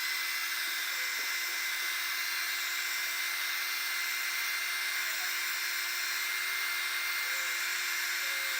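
Handheld hot-air blower running steadily: a constant rush of air with a thin high whine from its fan motor. It is heating the edges of an iPod Touch 4 screen before prying the display off.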